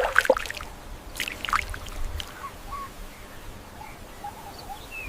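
Outdoor ambience with a few sharp, sweeping sounds in the first two seconds, then short, faint bird chirps.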